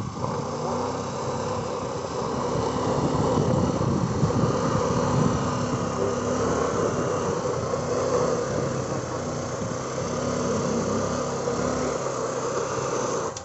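Honda Shine 125 cc single-cylinder motorcycle engine running hard and steadily under load as it strains to pull a tractor on a tow rope, its rear tyre slipping on the dirt.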